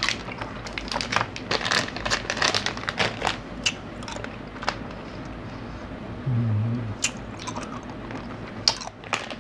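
Close-up crunching and chewing of a small hard snack in the mouth, crisp crunches coming thick for the first few seconds, then sparser chewing. A short hummed "mm" about six seconds in.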